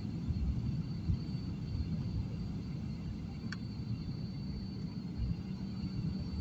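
Airliner cabin noise as the plane rolls along the runway after landing: a steady low rumble with a thin, constant high whine, and one short click about three and a half seconds in.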